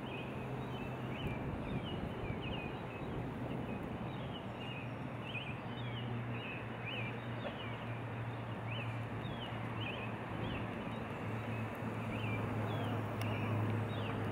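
Outdoor nature ambience: a steady rushing noise with a low hum beneath it, and many short high chirps of small birds, several a second.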